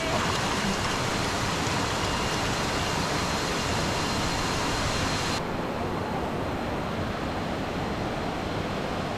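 Steady rushing of a jungle waterfall stream, an even noise; about five seconds in it turns suddenly duller, its hiss cut off.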